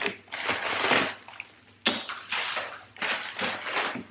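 Plastic packing material crinkling and rustling as it is handled, in several bursts, with a sharper rustle about two seconds in.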